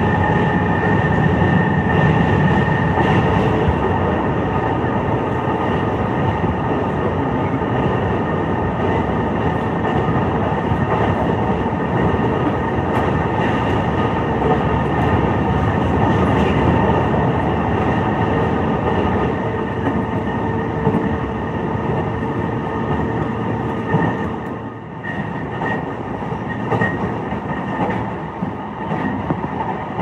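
Running noise inside a JR East E233-5000 series electric train at speed: a steady rumble of wheels on rail with a few faint steady whining tones. It gets quieter about 25 seconds in.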